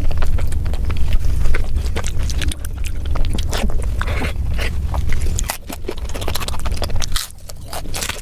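Close-miked chewing and mouth clicks of a person eating, many short sharp clicks in quick irregular succession over a low rumble that drops away a little past the middle.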